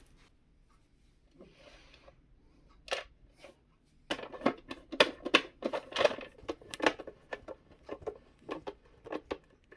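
Screws being driven by hand into the plastic top cover of a mixer grinder's base: after a few quiet seconds, a rapid, irregular run of small clicks and scrapes from the screwdriver and screws.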